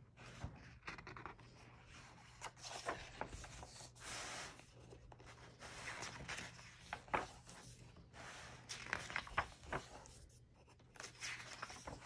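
Pages of a paperback picture book being opened and turned by hand: soft, faint paper rustles and light crinkles of the cover, with a few small taps.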